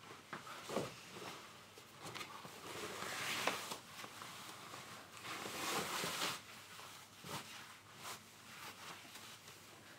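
Clothes rustling and swishing as they are pulled on and adjusted, in two longer stretches, with a few short soft knocks in between.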